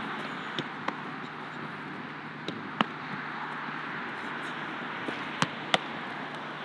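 A football being served and caught in goalkeeper gloves: three pairs of sharp slaps, each pair a third of a second apart, over a steady outdoor background hiss.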